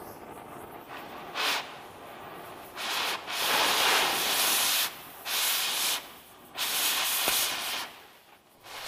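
Cutting torch hissing as it cuts out steel bolts, in about four bursts of up to two seconds each, with a quieter steady hiss from the flame between them.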